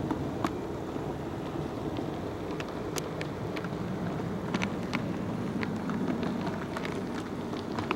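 HO-scale model train running along the layout's track: a steady low rumble with scattered sharp clicks.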